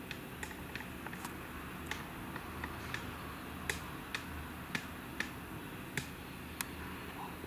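Scattered sharp clicks at irregular spacing, about two a second, over a steady low rumble.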